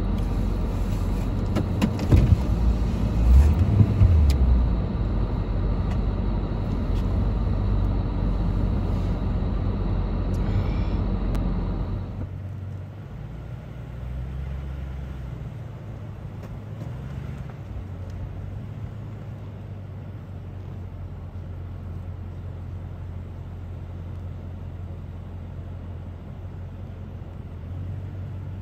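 Idling vehicle engine, a steady low rumble heard from inside the cab, with a few heavy low thumps about two to four seconds in. About twelve seconds in it cuts to a quieter, steady low hum.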